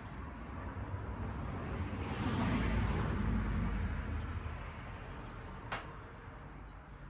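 A passing vehicle, its noise swelling to a peak and fading over a few seconds, with one sharp click near the end.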